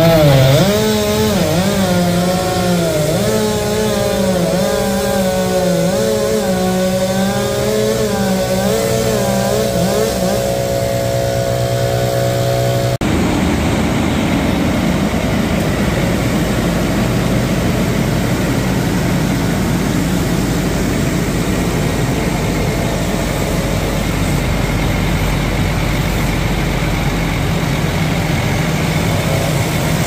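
Chainsaw cutting through a maple trunk, its engine pitch wavering up and down under load for about the first thirteen seconds. It then gives way abruptly to a steady heavy engine drone from the machinery on the site.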